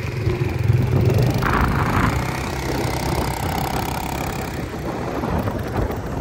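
Kymco MXU 300 ATV's single-cylinder four-stroke engine running as the quad drives across sand, growing fainter toward the end as it pulls away.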